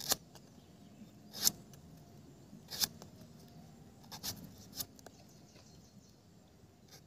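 Curved machete chopping into the fibrous husk of palmyra palm fruit (nungu): about five short, sharp cuts, roughly one every second or so, as the fruit is pared open to get at the jelly-like kernels.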